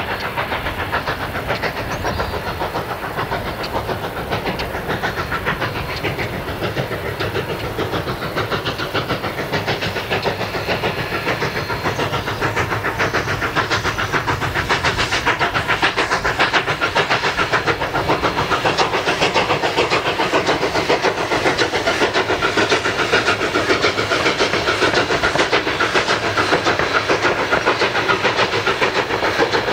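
Narrow-gauge K-36 2-8-2 steam locomotive 488 working eastbound toward Cumbres Pass, its exhaust beating in a fast, even chuff. The chuffing grows louder about halfway through as the engine draws near.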